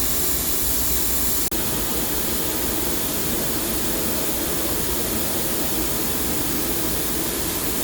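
Live tooling on a Tsugami B0326 Mark II CNC Swiss lathe spinning, giving a steady machine whir under a constant hiss. The sound drops out for an instant about a second and a half in.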